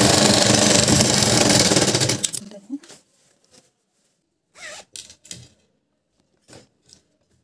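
Domestic sewing machine stitching through bag fabric for about two seconds, then stopping. After that, a few faint rustles and clicks as the fabric is handled and drawn out from under the presser foot.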